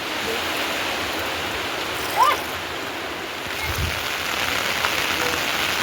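Heavy rain falling steadily, an even hiss of water. About two seconds in, a short rising squeak cuts through briefly.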